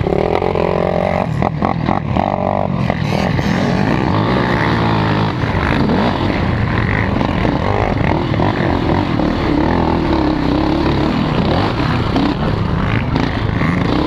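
KTM 450 XC race quad's single-cylinder engine running hard, revving up and down as the throttle opens and closes over rough dirt, with wind rush and a few sharp knocks from the machine in the first few seconds.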